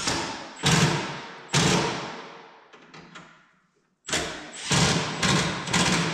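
A pickup's interior door trim panel being struck by hand to snap its plastic retaining clips home: about seven sharp thumps, three then four after a short pause, each ringing out in the shop.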